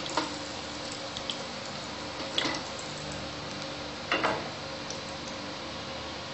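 Hot cooking oil sizzling in a frying pan as whole cumin seeds go in. There are a few light pops, and two louder bursts of spluttering about two and a half and four seconds in, over a faint steady hum.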